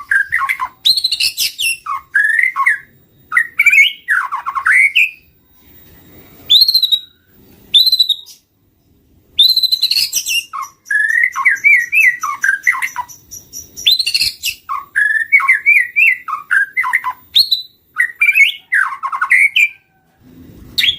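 White-rumped shama (murai batu) song played as a lure recording: a rapid, varied run of whistled phrases, rising and falling glides and quick trills, with short pauses about six and nine seconds in.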